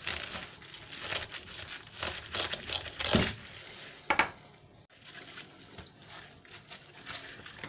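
Outer leaves of a cabbage head crackling and tearing as they are cut at the base with a knife and pulled off by hand: a run of crisp crunches and rustles, loudest a little after three seconds in and quieter in the last few seconds.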